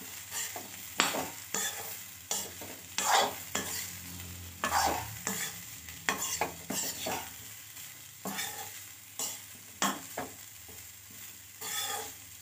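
Metal spoon scraping and stirring diced potatoes and chopped drumstick pods around a metal kadhai, in irregular strokes, with the sizzle of the vegetables frying without water underneath.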